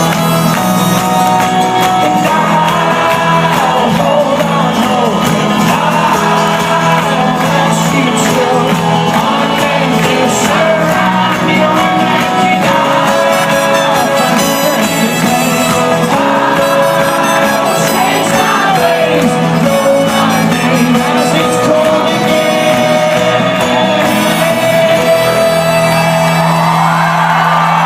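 Live folk-rock band playing loudly, with the audience shouting and singing along.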